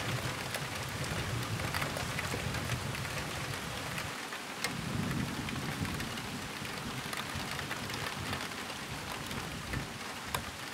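Heavy rain falling steadily, with many individual drops ticking sharply, under a low rumble of thunder that swells about halfway through.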